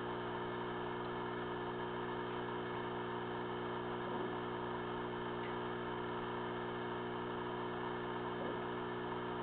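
Steady low electrical hum with a layer of hiss over it, unchanging throughout.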